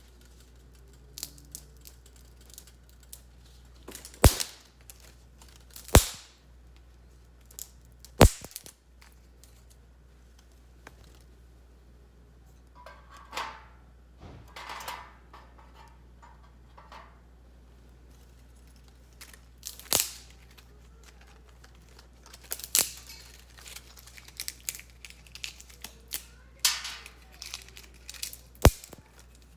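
Dry twigs cracking with sharp, irregular snaps, a handful of them loud, among smaller clicks and brief rustling.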